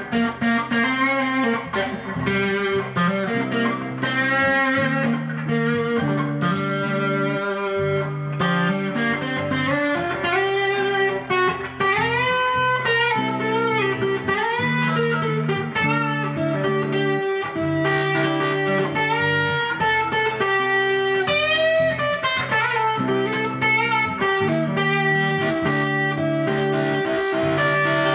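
Electric guitar lead played with finger bends and gliding notes that imitate slide guitar without a slide, over a steadily repeating pattern of low notes.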